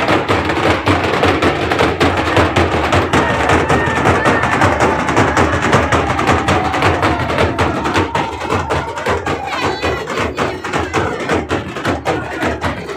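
Several large procession drums beaten hard in a fast, driving rhythm.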